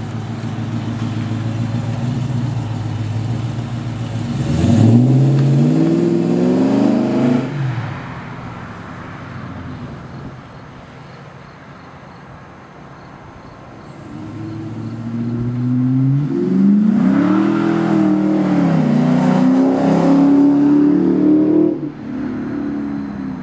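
Chrysler 300C V8 through a Borla exhaust with long-tube headers and high-flow cats, running steadily, then revving up sharply about five seconds in. It falls back to a quieter run, then revs again for several seconds with the pitch rising and wavering before it drops off near the end.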